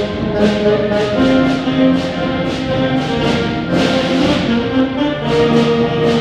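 A school instrumental ensemble playing a slow piece: sustained brass and wind chords that change every second or so, with repeated percussion strokes.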